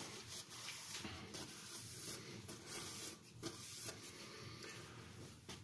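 A steel knife edge drawn lightly across an oiled sharpening stone under only the knife's own weight: a series of faint scraping strokes with short pauses between them, the light finishing passes of a sharpening.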